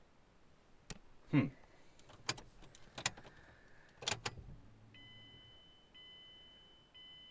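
Inside a car: a handful of clicks and rattles like keys at the ignition, with one short creak falling in pitch early on; from about five seconds in, the car's electronic warning chime sounds steadily, repeating about once a second.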